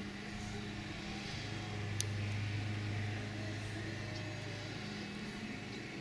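A steady low engine hum that swells slightly a couple of seconds in, with a single sharp click about two seconds in.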